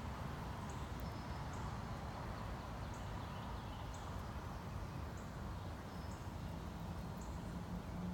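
Outdoor ambience: a steady low rumble with short, high animal chirps repeating about once a second. A low hum comes in near the end.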